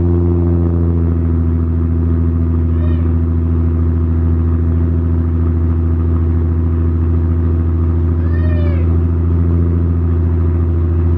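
Infiniti G37's VQ37 V6 idling steadily through a freshly installed RZG single-exit exhaust on its first startup, with a strong low drone. Twice a short high squeal rises and falls over the engine note.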